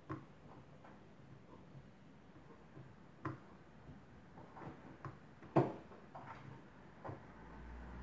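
Sparse small clicks and taps, about seven of them, from fingers unplugging cable connectors on a laptop motherboard; the loudest comes about five and a half seconds in.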